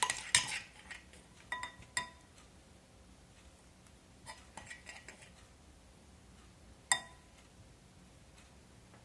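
Utensil clinking and scraping against a mixing bowl as slime is stirred: scattered short clinks with a brief ring in the first two seconds, a quick cluster about four to five seconds in, and one sharp clink near seven seconds.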